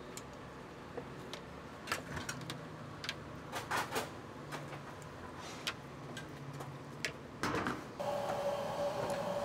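Light clicks, knocks and scrapes of a wooden rice paddle and a metal spoon against a small bowl as rice is dished out, with a few louder knocks. About eight seconds in, a steady hum comes in abruptly.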